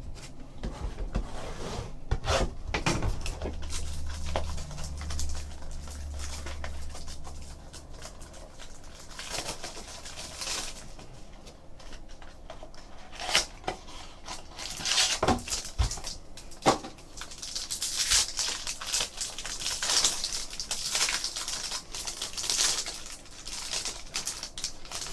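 Trading card pack being opened and its cards handled: wrapper tearing and crinkling with scattered clicks and taps. A low hum comes in for a few seconds near the start.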